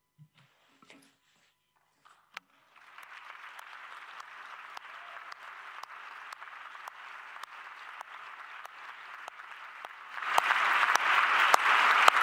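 Audience applause: after a couple of seconds of quiet, clapping begins about three seconds in and grows much louder near the end.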